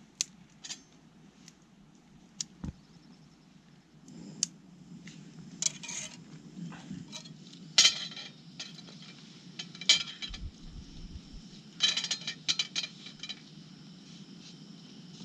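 Metal cooking utensil clinking and scraping against a pan set on a backpacking canister stove: scattered sharp metallic clinks with a short ring. The loudest come about eight and ten seconds in, then a quick run of several about twelve seconds in.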